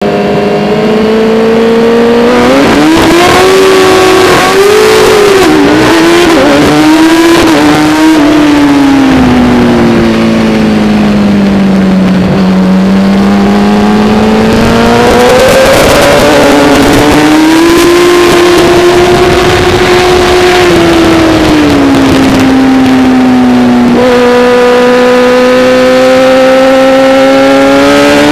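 Racing motorcycle engine at high revs, heard from on the bike. Its pitch climbs and drops again and again as it is run up through the gears and throttled off and on for corners, with a deep dip near the middle and a jump in pitch near the end.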